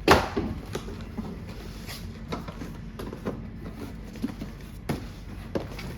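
Cardboard box and packaging being handled as the top is pulled off and the contents gone through: a sharp knock right at the start, then scattered light rustles and taps.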